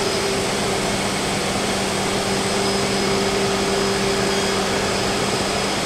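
Freedom Machine Tool Patriot CNC router running, its HITECO spindle working over the sheet while the dust collection draws air through the hose: a steady rush of air with a steady hum. A second, lower hum joins at the very beginning.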